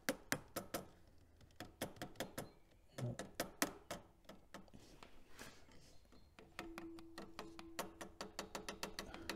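Light, rapid hammer taps on a plastic dipstick funnel, driving it down into the engine's metal dipstick funnel. The taps are irregular, a few to several a second, and come faster in the second half; the funnel is not going in.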